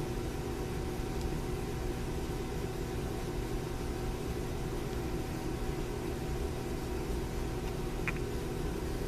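Steady mechanical hum of a running room appliance such as a fan, with several constant tones. One light click about eight seconds in.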